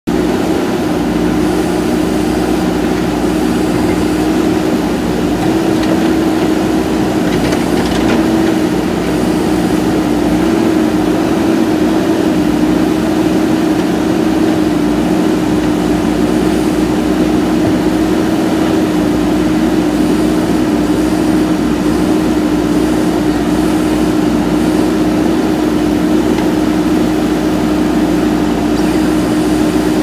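JCB 3DX backhoe loader's diesel engine running steadily, one even hum that holds its pitch.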